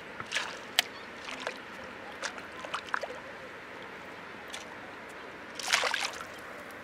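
A hooked pike splashing as it thrashes at the water's surface beside a boat, over a faint steady hiss: scattered small splashes and drips, then a bigger splash a little before six seconds in.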